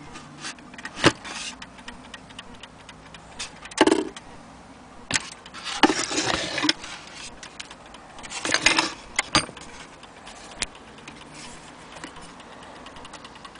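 Smiths Enfield mantel clock ticking under a run of handling noise as its wooden case is moved and turned round: sharp knocks about a second in and about four seconds in, a longer scraping stretch around six seconds, then a cluster of knocks around nine seconds. Near the end the front glass bezel is opened.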